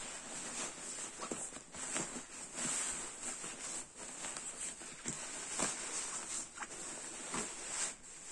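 Rustling and swishing of thin synthetic fabric as a goose-down sleeping bag with a 20D polyester shell is pushed by hand into its stuff sack, in irregular swishes with small crackles.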